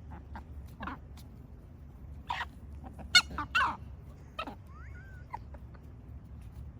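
Chickens sneezing: several short, sharp bursts, the loudest about three seconds in with another close behind it. The sneezing comes from eating dry ground feed that has not been wetted or fermented.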